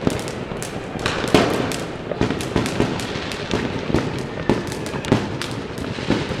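Firecrackers and fireworks going off all around, a dense, irregular barrage of sharp bangs, some near and loud, over a constant background of more distant bangs.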